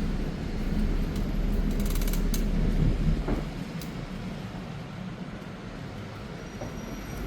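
City street background: a low traffic rumble, strongest for the first three seconds, with a few sharp clicks about two seconds in, settling into a quieter steady hum.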